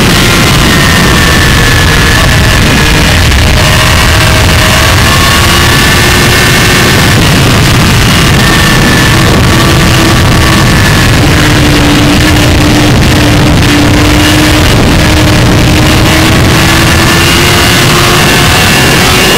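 Motorcycle engine running at speed under heavy wind rush on the onboard microphone. The engine note drifts slowly, dropping through the middle and climbing again near the end.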